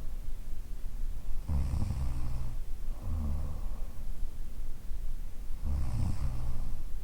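A woman snoring in her sleep: slow, low, rattling snores on each breath, about two breath cycles, each a longer snore followed by a shorter one.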